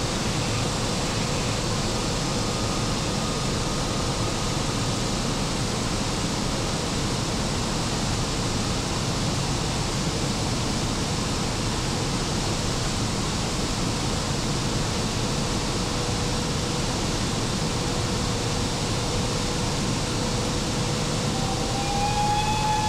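Steady rushing noise with a faint constant whine underneath, inside the machine room of an E 94 electric locomotive under way. Near the end a high, slightly wavering tone comes in over it.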